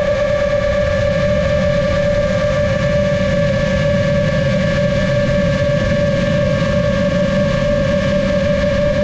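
GepRC MOZ-7 long-range FPV drone's motors and propellers whining steadily in flight, one held tone with fainter higher tones above it, over a low rush.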